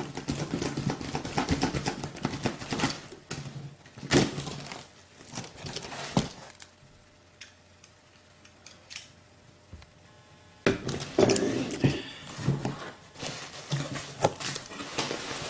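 Shipping packaging being opened by hand: rustling, crinkling and tearing of packing material with sharp knocks and clicks. About halfway through it falls nearly quiet for around four seconds, then the handling starts again abruptly.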